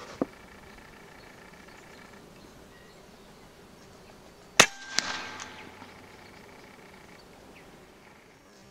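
A short click just after the start, then a pre-charged pneumatic air rifle fires a shot at a ground squirrel about 75 yards out. A second sharp crack about half a second after the shot is the pellet striking.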